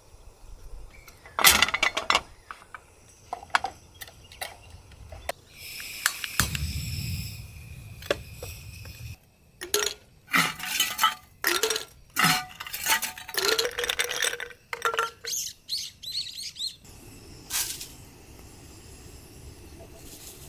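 Dishes and cookware clinking and knocking against each other: a string of sharp clinks, some with a short ring, thickest in the middle of the stretch. A steady hiss runs for about three seconds a little before them.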